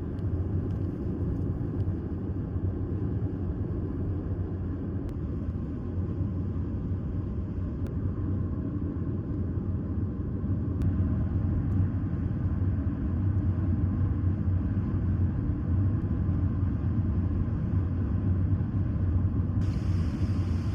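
Steady low rumble of a vehicle in motion, starting and stopping abruptly.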